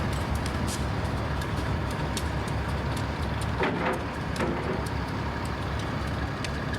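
Steady low vehicle rumble, with a brief pitched sound lasting about a second, midway through.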